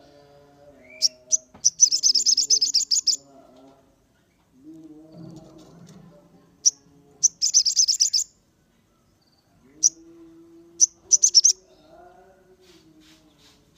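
Sogon sunbird singing: bouts of rapid, high-pitched chattering trills, each a second or two long and three in all, with single sharp chips between them. Fainter, lower warbling calls run underneath.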